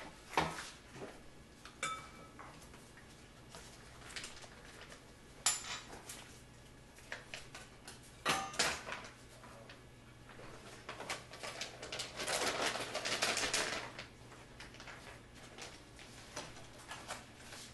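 Spoon and spatula clinking and scraping against a glass bowl as thawed grated cassava is scooped out of a plastic bag, with a few sharp clinks and a denser rustling scrape lasting about two seconds near twelve seconds in.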